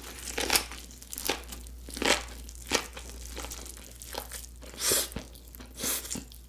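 Close-miked eating sounds: kimbap being bitten and chewed, with irregular crisp crackling bites every second or so.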